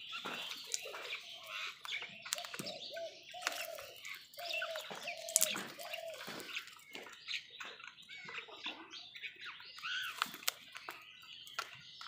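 A flock of house crows calling, with a run of repeated caws through the middle, over sharp clicks and taps of beaks pecking food in a plastic bowl.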